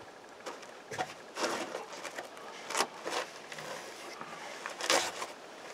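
Wood campfire crackling under roasting sausages: about five irregular pops and hissing spurts over a faint steady hiss.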